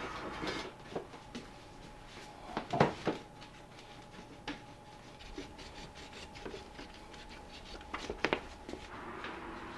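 A cloth wiping across a table-set steel teppan griddle: soft rubbing with a faint steady tone under it, broken by sharp knocks twice about three seconds in and again near the end.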